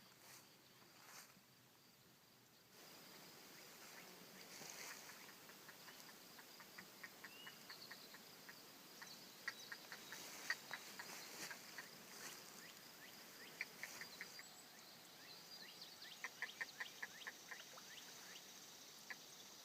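Faint pondside ambience: a steady high insect hum, with several short runs of quick, evenly repeated chirps from a small animal.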